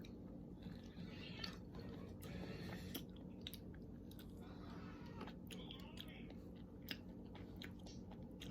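Faint chewing of ripe mango flesh close to the microphone, with scattered small mouth clicks, over a low steady hum.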